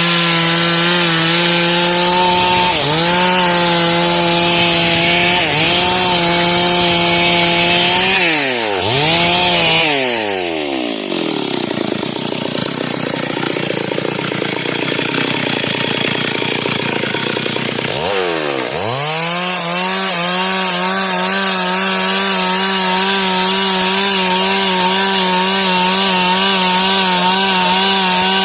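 Stihl MS 382 two-stroke chainsaw running at high revs while ripping dry wood, its pitch dipping briefly under load. About ten seconds in the engine note drops sharply and runs lower and rougher for about eight seconds, then climbs back to full revs.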